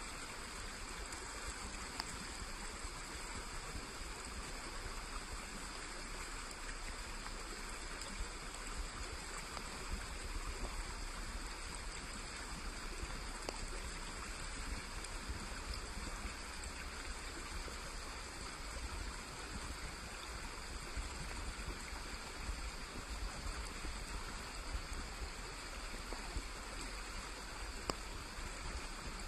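Steady rushing of a small stream flowing, an even wash of water noise with a low rumble underneath.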